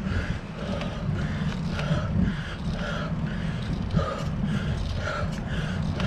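A cyclist breathing hard in a regular rhythm, about two breaths a second, from the effort of climbing a very steep hill. Under it is a steady rumble of tyres and wind.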